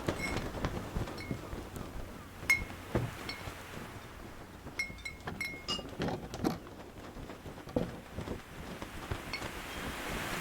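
Small metallic clinks with a short ringing tone, scattered irregularly, about ten in all, from a sailboat's rigging fittings, over a soft wash of wind and water.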